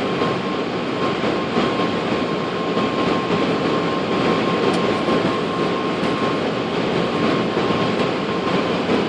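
Steady rush of airflow and engine noise on a Boeing 747-400 flight deck on final approach, with gear down and flaps at 30. A thin steady high tone runs under it and stops near the end.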